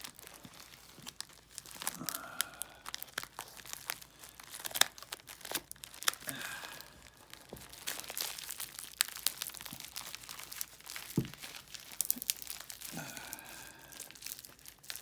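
Packing tape being torn and peeled off a heavily taped package, with the wrapping crinkling and crackling and many sharp little clicks throughout.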